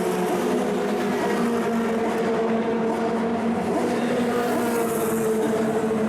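Engines of 1960s cigar-shaped Formula 2 and Formula 3 racing cars running at a steady, nearly unchanging pitch.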